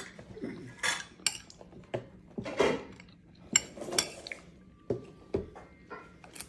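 Forks and spoons clinking and scraping against dinner plates during a meal, a string of separate sharp clinks at irregular intervals.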